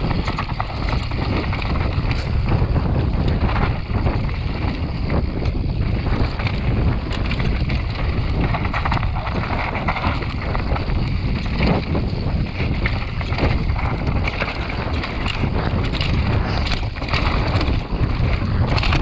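Wind buffeting the microphone with tyres rolling over dry, rocky dirt during a fast mountain bike descent, broken by frequent knocks and rattles from the bike on rough ground.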